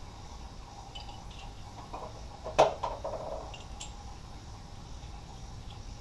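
A single sharp knock about two and a half seconds in, with a short ringing tail, and a few fainter taps around it, over a steady low background hum.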